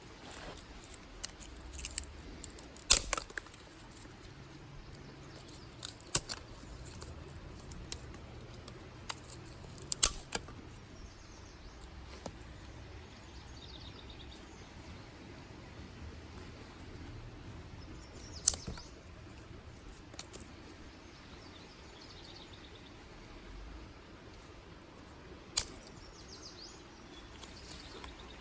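Dry sticks and twigs snapped by hand: a sharp crack every few seconds, with smaller crackles between. Faint birds chirp in the background.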